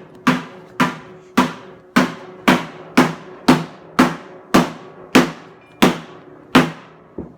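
Hammer blows on the steel shell of an old water heater tank, about two strikes a second, each ringing out metallically; the last blow near the end is weaker.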